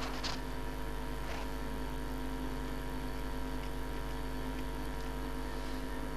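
A steady hum made of many fixed tones over a deep low drone, with a short rustle just after the start and another about a second later.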